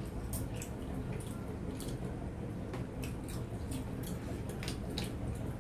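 Eating with the hands: fingers mixing rice and pulling meat on glass plates, giving scattered small clicks and soft squishes over a steady low hum.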